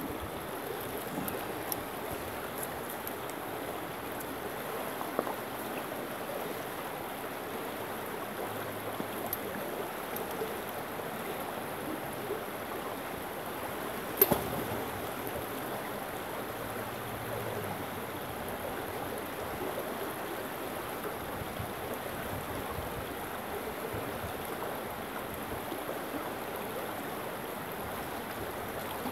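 A shallow stream running and rippling over stones in a steady wash, with one sharp knock about halfway through.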